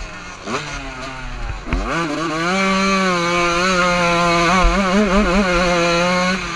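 Two-stroke motocross bike engine. It is off the throttle with short blips for the first couple of seconds, then revs up and holds steady at high revs, wavering briefly near the end. The rider's caption says the bike is running lean.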